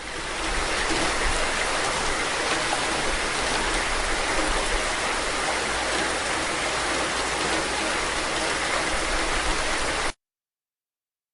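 Recorded rain: a steady, even hiss of falling rain that cuts off abruptly about ten seconds in, leaving dead silence.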